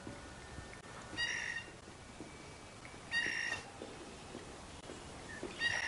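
Three short, high animal calls about two seconds apart, each a brief steady cry.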